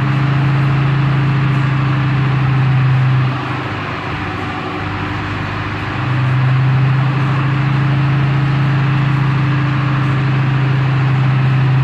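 Forklift engine running with a steady low hum, easing off about three seconds in and picking up again about six seconds in as it works its hydraulics to lower the rollback bed.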